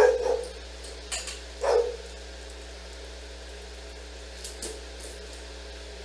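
A dog barking twice, two short woofs about a second and a half apart, with a few faint clicks between and after.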